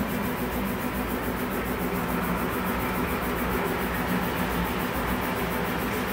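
Steady running hum and rumble of HO-scale-size model trains and motorized animations on a large miniature train layout, mixed with the hall's ambient noise.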